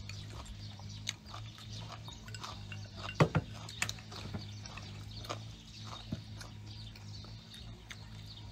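Close-miked chewing and mouth smacks with small clicks, and chopsticks tapping a ceramic bowl. A pair of sharp knocks about three seconds in is the loudest sound.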